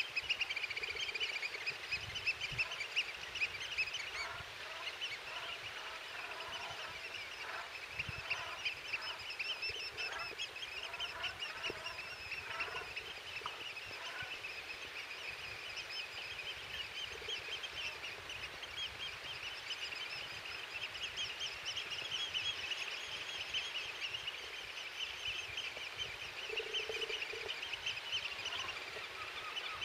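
A large flock of birds calling at once: a dense, steady chorus of many overlapping high calls, with lower-pitched calls mixed in during the first half.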